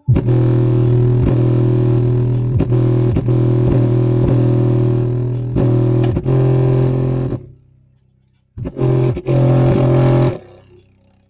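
Bass-heavy music played loud through a Sony subwoofer: a deep, sustained bass note with a steady beat. It cuts off about seven seconds in and returns in two short bursts near the end.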